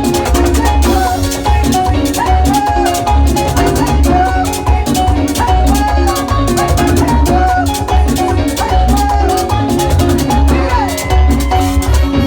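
Loud Latin dance music with a steady driving drum and bass beat.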